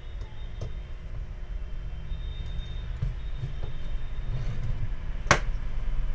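Small handling clicks and knocks as a charger circuit board and capacitor are handled and turned over, with one sharp click about five seconds in, over a steady low background rumble.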